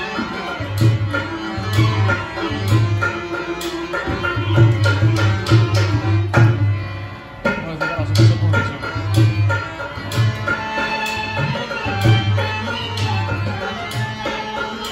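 Live Rajasthani folk music: hand drums play a steady rhythm of deep, booming strokes under a melodic instrument. The music drops away briefly about seven seconds in, then picks up again.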